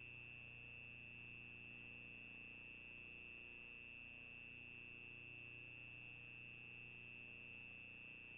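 Near silence: a faint, steady high-pitched electronic whine over a low hum, the self-noise of a CCTV camera's built-in microphone.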